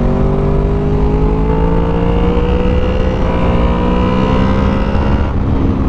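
Honda VFR800 V4 engine through an aftermarket Delkevic exhaust, pulling steadily under throttle. Its pitch rises slowly for about five seconds, then drops back near the end as the throttle eases or a gear changes, over a heavy low rumble of wind and road noise.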